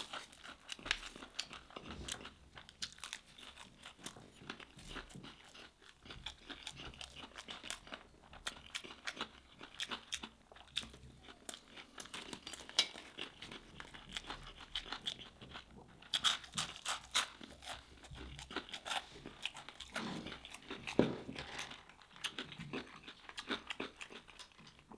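Close-up chewing of crispy nut-coated fried fish: an uneven run of crisp crunches and bites, louder at a few moments past the middle.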